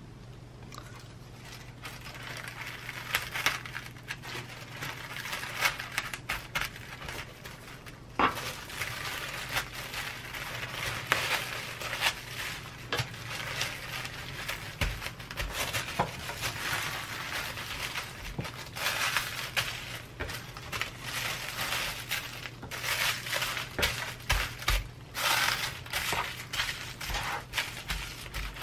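Baking paper crinkling and rustling in quick, irregular crackles as it is folded and pressed tightly around a sandwich.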